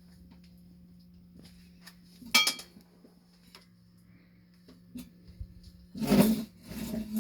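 Handling noise from a metal object: a sharp metallic clink about two and a half seconds in that rings briefly, then two louder rustling, knocking bursts near the end, over a steady low hum. The horn is not blown.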